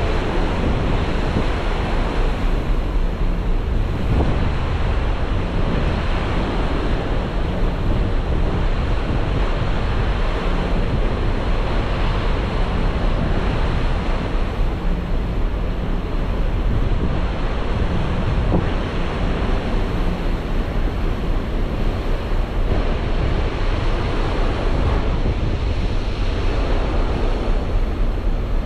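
Steady wind rushing over the microphone, with the wash of the sea beneath, heard from the deck of a moving ferry.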